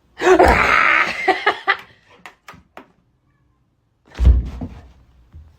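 A loud, harsh animal cry lasting about a second and a half, followed a few seconds later by a single thump.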